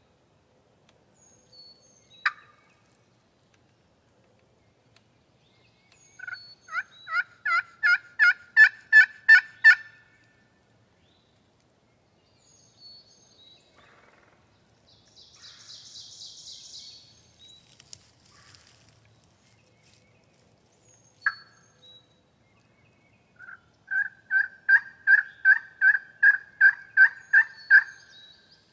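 Wild turkey yelping: two series of about a dozen evenly spaced yelps, each series getting louder, with a few single sharp notes in between.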